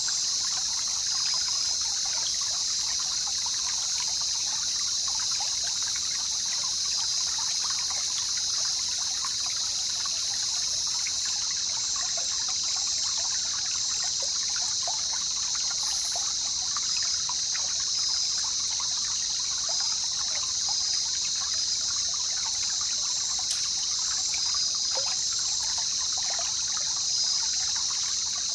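Jungle river water trickling and babbling steadily over a constant high-pitched hiss-like drone.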